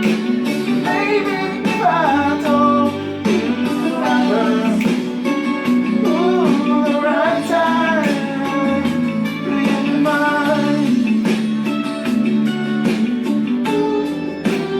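A slow song with guitar accompaniment and a bending sung melody line without clear words.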